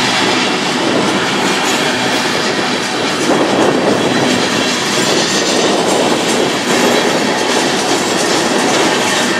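Freight train's tank cars and boxcars rolling past close by: a loud, steady rush of steel wheels on the rails.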